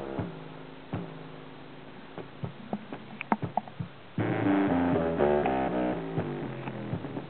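Bass test track played loud through a small speaker's woofer. A quieter, sparse passage with scattered clicks comes first; about four seconds in, the full music comes back in, a deep bass line under a run of stepping notes.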